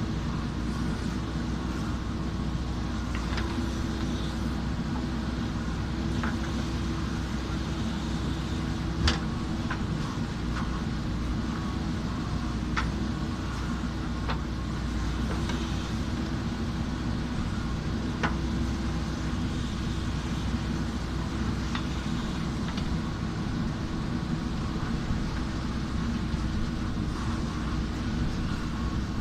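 JCB backhoe loader's diesel engine running steadily under work, with a few sharp clicks and knocks now and then.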